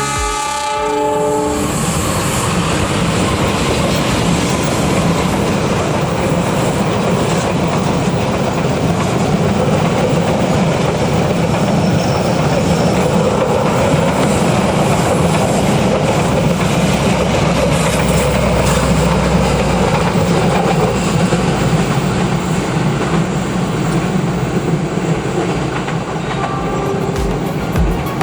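Taksaka passenger train passing at speed: a long, steady rush of wheels on rails with clickety-clack from the carriages.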